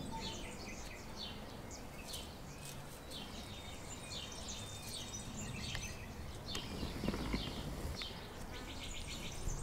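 Outdoor ambience of small birds chirping in short, scattered calls, with insects in the background and a soft low bump about seven seconds in.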